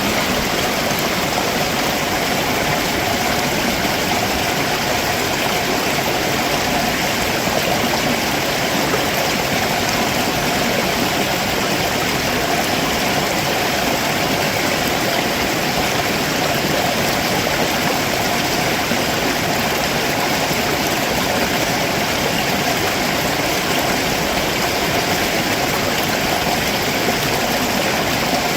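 A rocky stream below a waterfall, water rushing and splashing over stones in a steady, unbroken flow.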